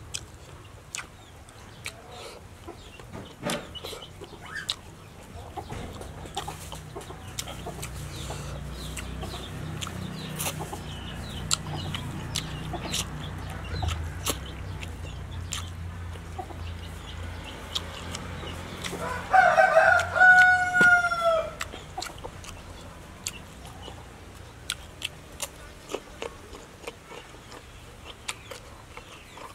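A rooster crows once about two-thirds of the way through: a few broken opening notes, then a long held note that falls in pitch. Close mouth clicks and chewing of raw vegetables and rice are scattered throughout.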